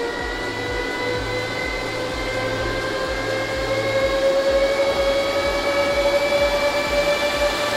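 Bitmain Antminer S19j Pro's cooling fans spinning up after power-on: a loud whir with a whine that rises steadily in pitch as the fans speed up.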